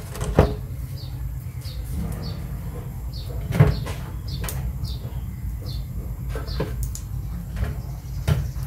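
Steady low hum from an electric cooktop heating oil in an aluminium wok. Scattered sharp clicks and a short high chirp repeating about once a second sound over it.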